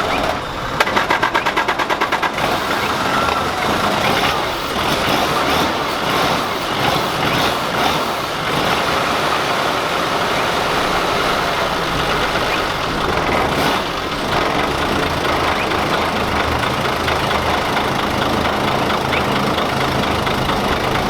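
Toyota HJ47 Land Cruiser's naturally aspirated 2H diesel engine being cranked over with rapid even pulses, catching about two seconds in and then running steadily at idle.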